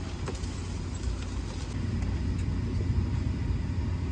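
Steady low cabin rumble inside a Boeing 737-800 parked at the gate, with a faint click about a third of a second in.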